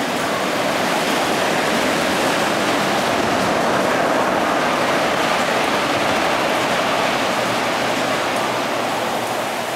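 Siemens ER20 diesel-electric locomotive passing close by along a station platform: a steady rushing roar of engine and wheels on rail. It is loudest as the locomotive goes by about four seconds in, then slowly fades as it draws away.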